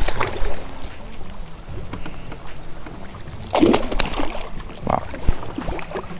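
A small pike splashing and thrashing at the surface beside the boat while being played on the line. The splashes come in irregular bursts, loudest about three and a half seconds in, over a steady low rumble.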